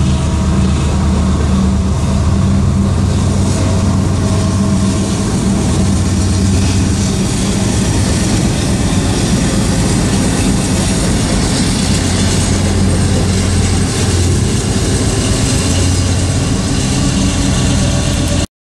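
A long train of coal hopper cars rolls past, with steel wheels rumbling and clattering on the rails over a steady diesel engine drone. About ten seconds in, two Union Pacific diesel locomotives at the rear of the train pass. The sound cuts off abruptly near the end.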